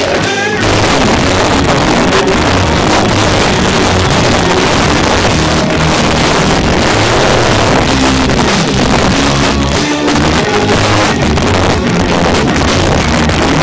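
Live rock music played loud: a Stratocaster-style electric guitar played through an amplifier, over a full, steady low end from the band.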